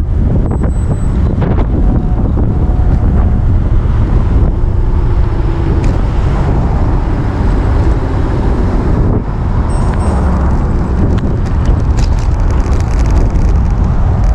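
Wind buffeting the microphone at riding speed, a loud steady low rumble, with road and vehicle noise underneath.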